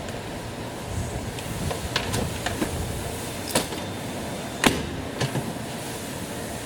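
A handful of short, sharp clicks and knocks over a steady background hiss; the loudest comes about two-thirds of the way through.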